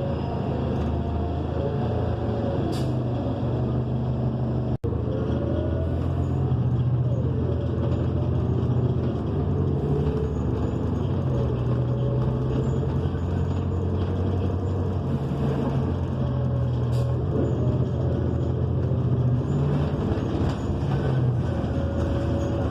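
Inside a New Flyer XN40 transit bus under way: its Cummins Westport ISL G natural-gas engine and Allison automatic transmission give a steady low drone that steps up and down, with a fainter whine that rises and falls in pitch. The sound drops out for an instant about five seconds in.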